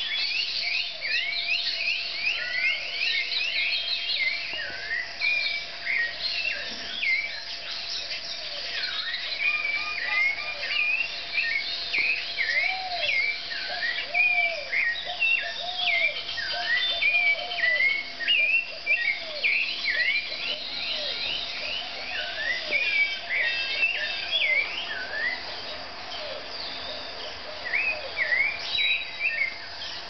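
Morning chorus of many tropical birds singing at once: a dense run of quick sweeping chirps, with a lower series of repeated arched notes through the middle.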